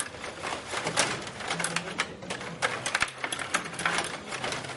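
Stiga table hockey game in play: the control rods are pushed and spun and the plastic players and puck knock against each other and the plastic rink, a quick irregular clatter of clicks and knocks.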